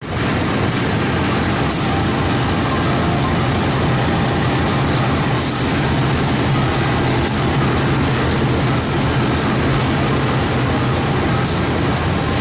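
CC 203 diesel-electric locomotive's diesel engine running, a loud steady low drone, with short high-pitched hisses coming back every second or so.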